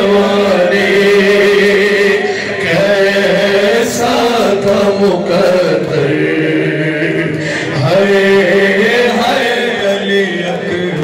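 A man chanting a noha, a Shia mourning lament, into a microphone, holding long drawn-out notes.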